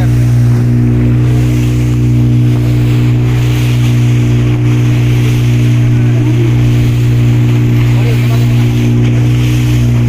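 Motorboat engine running steadily at constant speed: a loud, unchanging low hum with several steady tones above it.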